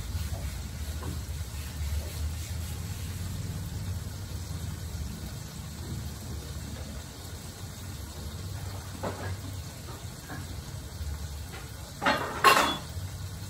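Meat frying in a wok on a gas stove: a faint, steady sizzle over a low rumble. Near the end come two sharp, loud knocks or clatters.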